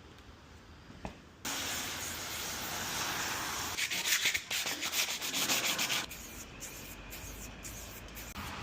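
Sanding: an abrasive rubbing hiss that starts about a second and a half in, with quick back-and-forth strokes in the middle, then continues more softly with a few clicks.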